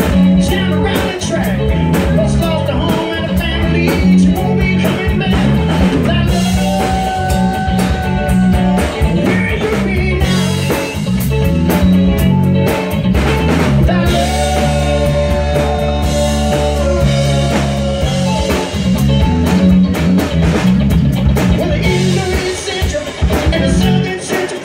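A live rock band playing: a male singer with electric guitar, bass guitar and a drum kit keeping a steady beat. The vocal holds long sung notes at a few points.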